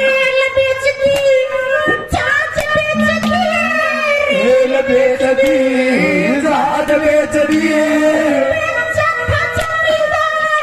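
A man singing a Haryanvi ragni into a microphone, his voice bending and gliding through the phrases over a steady held drone, with sharp percussive strikes.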